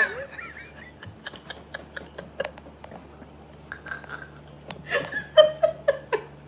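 A woman laughing in a quick run of short bursts, starting about five seconds in, after a few seconds of only faint clicks.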